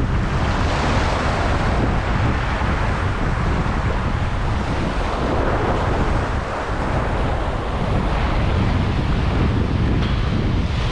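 Sea surf washing over shoreline rocks, with wind buffeting the microphone: a steady, loud rushing noise.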